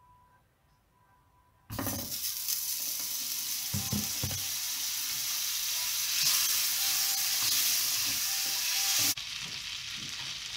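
Butter sizzling in a hot non-stick frying pan, starting suddenly about two seconds in as it hits the pan. A few low knocks come around four seconds in as a wooden spatula pushes it about. The sizzle drops to a lower level about nine seconds in and goes on as the butter melts and foams.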